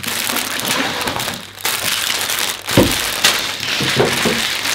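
Plastic bags of LEGO bricks crinkling and rattling as they are pulled from their boxes and spread across a table, with a dull thump a little under three seconds in.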